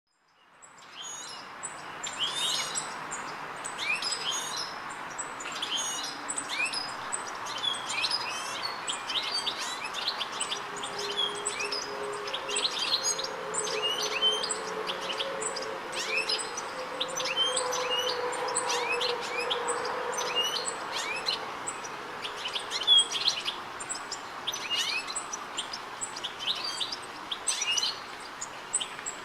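European goldfinch calling: quick, high twittering notes in rapid runs throughout, over steady background noise.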